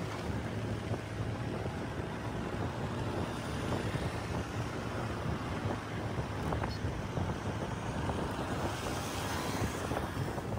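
Steady road and traffic noise from a moving vehicle: a low engine and tyre hum, with other trucks and cars travelling close alongside.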